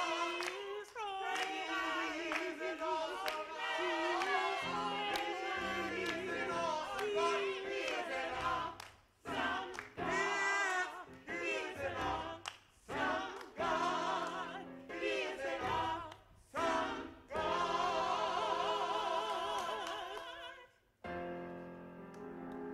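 Small gospel choir singing with keyboard accompaniment, the voices held with a wide vibrato. The singing stops about 21 seconds in, and soft music of steady held notes follows near the end.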